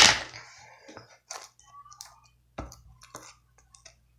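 Slime being squeezed and pulled by hand: a short burst of noise at the start, then scattered small wet clicks and squishes.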